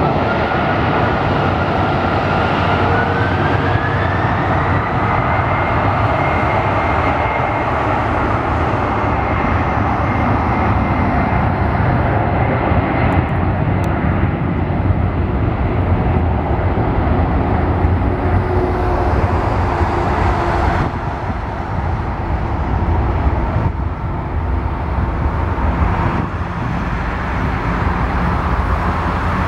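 Boeing 767-300's twin turbofan engines spooling up to take-off thrust: a whine rises in pitch over the first few seconds, then holds as a steady, loud jet-engine noise during the take-off roll.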